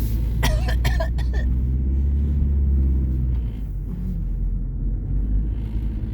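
Car cabin rumble of a car being driven: steady low engine and road noise. A brief vocal sound from a passenger, like a cough, comes about half a second in.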